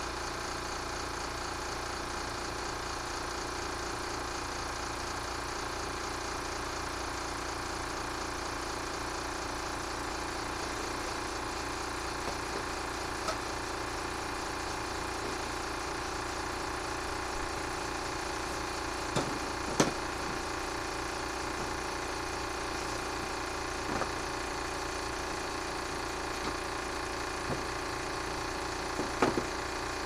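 Electric fan running close to the microphone with a steady hum, with a few light clicks and knocks of tools and parts being handled on a wooden workbench, the sharpest about twenty seconds in and a couple more near the end.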